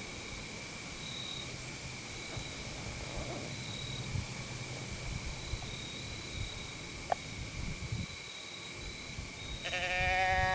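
Steady chorus of insects in two high, unbroken tones, with a single sharp click about seven seconds in. Near the end comes a short pitched call, about a second long, that falls slightly in pitch.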